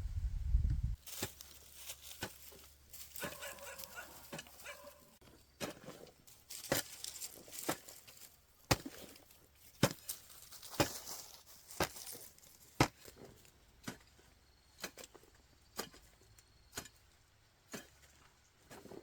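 A series of irregular sharp knocks and taps, roughly one a second, with a short pitched call or squeak a few seconds in.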